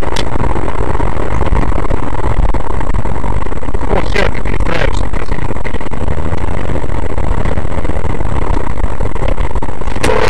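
A car's engine and road noise from a dashcam inside the moving car: a loud, steady rumble. Two short, sharper noises come about four and five seconds in.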